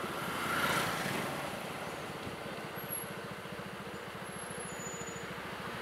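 Vehicle noise from riding in slow traffic on a wet road: a steady, low, evenly pulsing engine throb under road noise, with a vehicle going by between about half a second and a second in.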